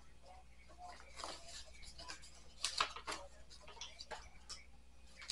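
Faint, irregular clicks and small knocks, with a faint voice in between.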